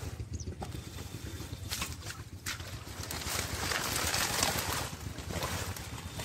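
Water hyacinth leaves rustling and shallow muddy water sloshing as hands rummage through the plants, busiest in the middle.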